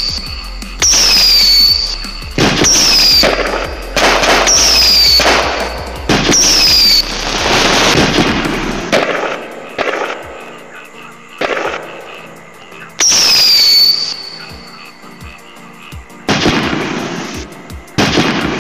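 Firework sound effects from an LED fireworks light's sound module: short whistles that drop in pitch, each followed by a crackling burst, repeating every second or two, with looser crackling bursts later on.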